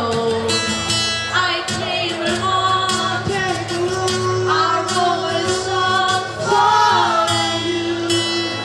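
Live vocal performance: singing over a strummed acoustic guitar.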